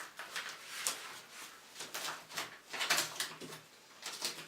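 Cardboard box panels being lifted, pressed and aligned by hand: irregular rustling scrapes and light knocks of cardboard.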